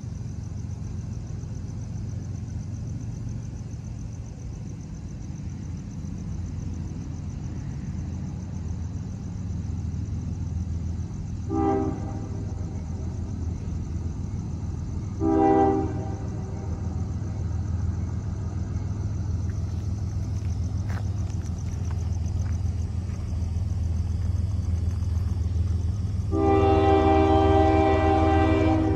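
Freight cars of a passing CSX train rumble steadily over the rails. Over this, an approaching CSX diesel locomotive sounds its horn: two short blasts about four seconds apart, then a long, louder blast starting near the end.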